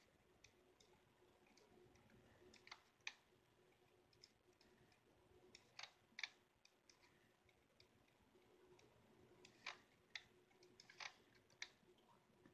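Faint, sharp computer mouse clicks at irregular intervals, several in quick pairs, over near-silent room tone.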